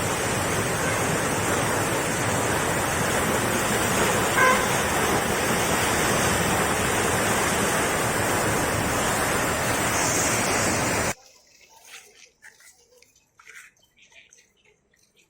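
Heavy rushing water: a loud, steady wash of noise, with a short pitched tone about four seconds in. It cuts off abruptly about eleven seconds in, leaving only faint scattered sounds.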